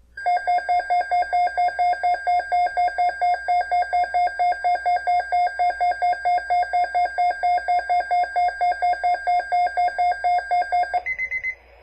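Emergency alert attention tone: a rapid electronic beeping, about four or five beeps a second, which changes about eleven seconds in to a short run of higher-pitched beeps. It is the alert signal that comes before an Environment Canada weather bulletin.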